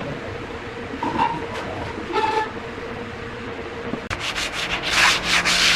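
A steady low hum with a few faint clicks. From about four seconds in come quick rubbing strokes on wood, as in hand sanding, which run together and grow louder near the end.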